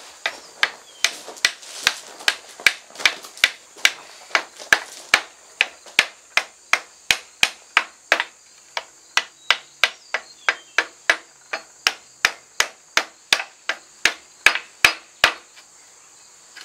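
Blacksmith's hand hammer striking a red-hot froe eye held in tongs on an anvil, a steady run of about three blows a second that stops shortly before the end. The smith is working the forge-welded eye into line with the blade.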